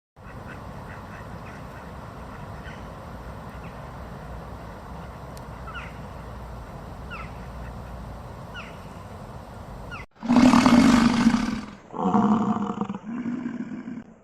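Steady outdoor ambience with a few faint bird chirps, then a large animal roaring near the end: one long roar followed by two shorter ones.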